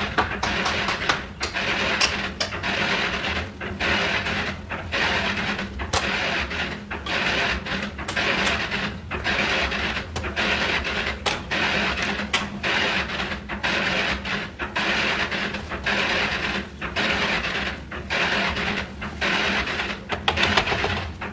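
Handheld electric saw running and cutting into a wooden door frame, the cutting noise rising and falling in short repeated passes over a steady motor hum.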